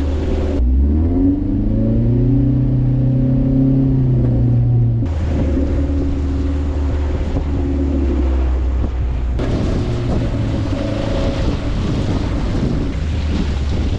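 Off-road vehicle engine running: its pitch climbs and holds as it revs about half a second in, then drops back around five seconds in. From about nine seconds, wind buffeting the microphone covers much of it.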